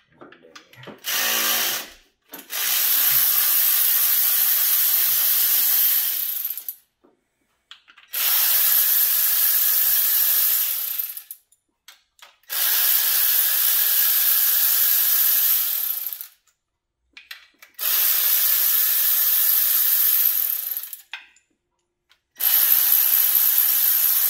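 Cordless electric ratchet spinning engine bolts loose: a short burst about a second in, then five runs of three to four seconds each with short pauses between.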